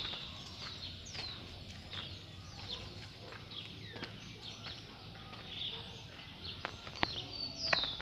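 Birds chirping: many short calls that sweep down in pitch, repeated throughout, with a few sharp clicks here and there.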